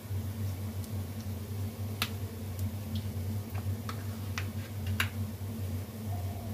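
Hot oil in a wok crackling, with scattered sharp pops and ticks as rice-flour batter strands fry in it, loudest about two and five seconds in, over a steady low hum.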